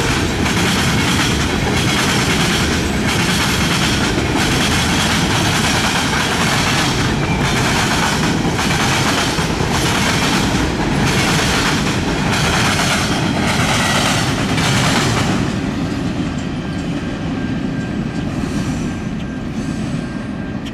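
Freight train's cars rolling past at speed, the wheels clacking over the rail joints and the diamond crossing in a steady rhythm of about one to two clacks a second over a heavy rumble. About 15 seconds in, the last car passes and the sound drops away as the train moves off.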